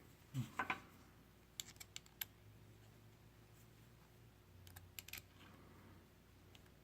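Handheld tungsten grinder being handled and opened up to reach its diamond wheel: a couple of soft knocks in the first second, a quick run of sharp clicks about two seconds in, and another small cluster of clicks about five seconds in.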